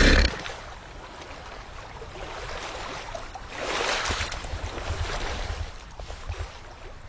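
Water sound effect: lapping and sloshing, swelling about halfway through as the crocodile comes up out of the water.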